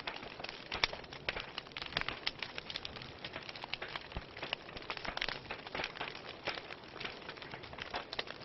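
Wood fire burning in a fireplace, with a steady hiss and many sharp, irregular crackles and pops from the burning logs.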